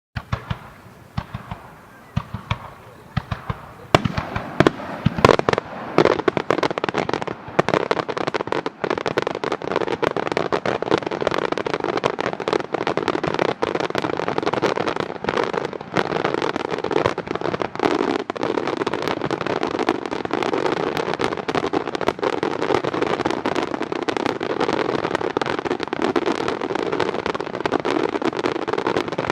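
Fireworks barrage of chrysanthemum shells. Scattered sharp bangs for the first few seconds, then from about four seconds in a dense, unbroken rush of overlapping bursts and crackle.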